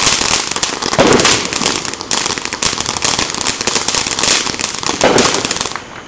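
Ground fountain fireworks spraying sparks: a dense, steady crackling hiss, with louder bursts about a second in and again about five seconds in. It dies down near the end.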